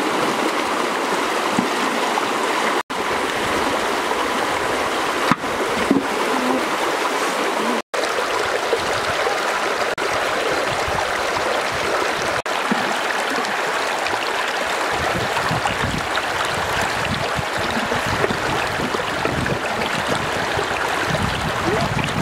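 Shallow stream rushing and gurgling over stones, a steady wash of water. It cuts out for a split second twice, and a deeper churning joins in about two-thirds of the way through.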